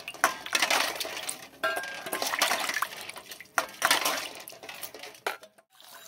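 Raw eggs being washed by hand in water in a stainless steel bowl: water sloshing and splashing, with many sharp clinks as the eggs knock against the metal bowl and each other. The sound drops out briefly near the end.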